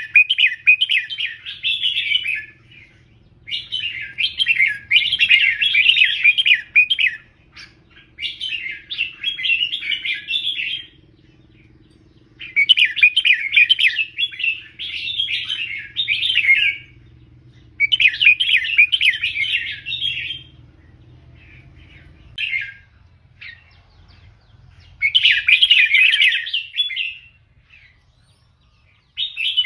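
Red-whiskered bulbul singing: a series of rapid warbling song phrases, each two to four seconds long, separated by short pauses, with a few brief single notes near the end.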